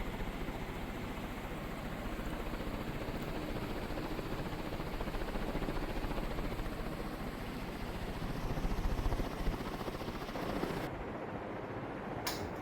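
A LUCKY 56-inch industrial ceiling fan running, giving a steady rush of moving air with a fast low flutter. Near the end the hiss thins out suddenly and there is one sharp click.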